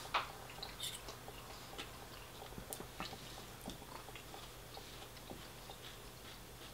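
Close-miked chewing and small wet mouth sounds of someone eating, with scattered faint clicks and one sharper click right at the start.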